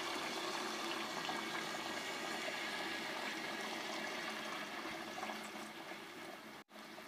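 Chickpea stock (yakhni) poured into a cooking pot of fried masala and chickpeas: a steady rush of liquid that tails off about five seconds in, with a brief abrupt cut-out near the end.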